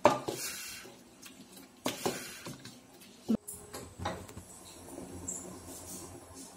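Wooden masher knocking against the sides of an aluminium pressure cooker while mashing cooked dal, a few sharp knocks about two seconds apart. After that comes the softer, steady bubbling of a pot boiling on the stove.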